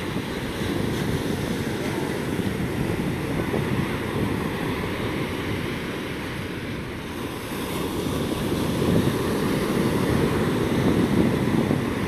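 Atlantic surf breaking and washing up a sandy beach, with wind buffeting the microphone. The sound swells louder about eight seconds in.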